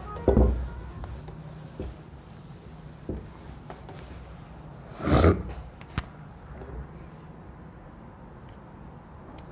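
Crickets chirping steadily in the background, with scattered knocks and rubbing from a duster being wiped across a whiteboard. The loudest is a short burst of noise about five seconds in.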